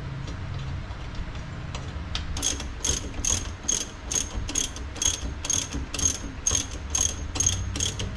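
Hand ratchet wrench clicking in steady, even strokes, about two to three clicks a second, starting about two seconds in, over a low hum.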